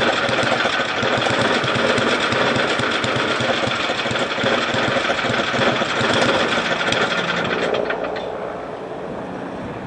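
Tecumseh HM80 8 hp single-cylinder engine running rough and stumbling as its fuel is shut off and the carburetor runs dry, then cutting out about eight seconds in.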